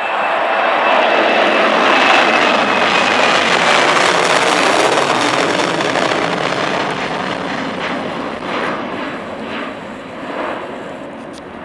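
Boeing 737-800's twin CFM56-7B turbofan engines climbing out after takeoff and passing overhead: loud jet noise with a high whine that slides down in pitch as the aircraft goes by, then slowly fading as it flies away.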